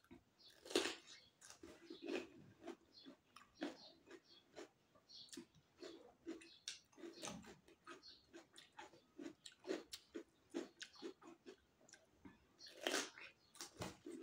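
Biting into and chewing a wedge of raw cucumber: a steady run of short crunches and wet chewing clicks, with the loudest bites about a second in and near the end.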